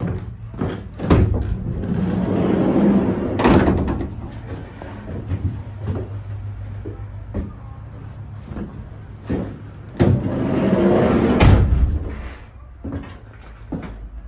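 Sliding side door of a Ram ProMaster cargo van rolling open, with a clack at the start and a knock at the end. About ten seconds in it rolls shut and latches with a slam. A low steady hum and a few handling clicks run underneath.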